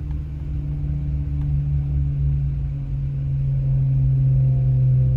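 Car engine idling, heard from inside the cabin: a steady low hum that grows slowly louder.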